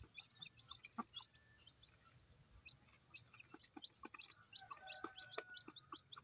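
Newly hatched chicks peeping faintly, with many short, high chirps in quick succession and a few soft taps.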